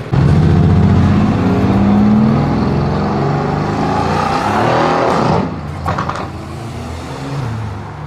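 Mercedes-AMG car's engine accelerating hard, its pitch rising for about five seconds. Near the middle the throttle closes: the engine note drops, there are a few exhaust pops, and the engine carries on at a lower, steadier pitch.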